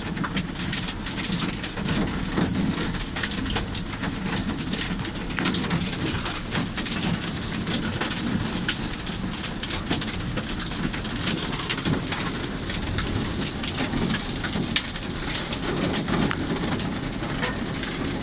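Heavy rain beating on the roof and windows of a car, heard from inside the cabin, with many sharp single drop hits over a steady hiss.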